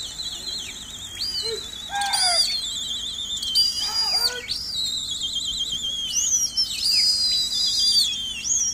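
Shrill whistling by pigeon keepers to a flock in flight: a warbling trilled whistle runs throughout, with several sharp, steady higher whistle blasts laid over it and a couple of short falling calls.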